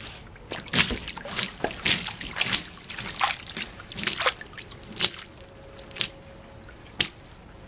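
Water sloshing and splashing in a plastic garbage can as a heavy 12-inch fireworks water shell is plunked in and bobs, rolling as it rights itself. Water washes over it in irregular splashes that die down after about six seconds, and there is one sharp tap near the end.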